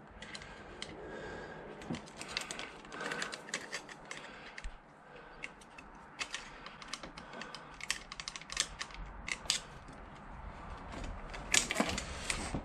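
Irregular small metallic clicks and taps of a screwdriver and throttle cable end against the carburettor bank's throttle linkage as the cable is worked into place, with a louder cluster of clicks near the end.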